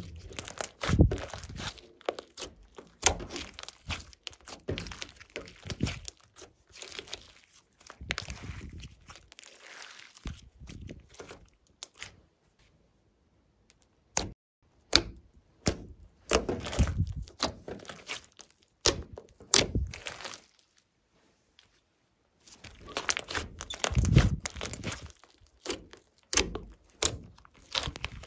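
Glossy slime being squished, stretched and folded by hand: irregular sticky clicks, pops and crackles, with two short pauses partway through.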